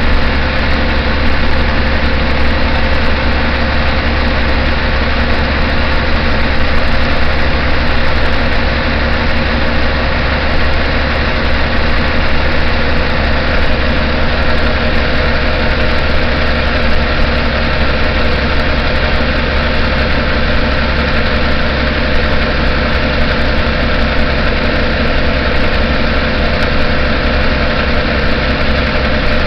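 City bus engine running steadily as the bus drives, a loud low drone heard inside the passenger cabin with the engine hatch open.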